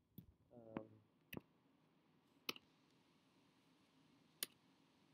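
A few separate clicks of computer keyboard keys, four sharp presses spread out with near silence between them, and a brief low murmur from a voice about half a second in.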